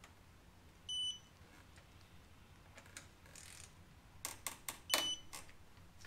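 Digital torque wrench beeping twice, about four seconds apart, each time the fork pinch bolts reach the set torque of 35 foot-pounds. A few sharp clicks come just before the second beep.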